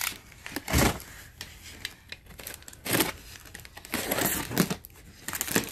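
Box cutter slitting the packing tape along the top seam of a cardboard box, heard as several separate scraping, tearing strokes with cardboard rustle. A thump of the box being handled about a second in is the loudest sound.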